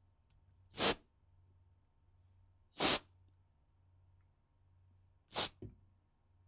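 Can of compressed air (air duster) sprayed in three short hissing bursts about two seconds apart, the last followed at once by a brief smaller puff.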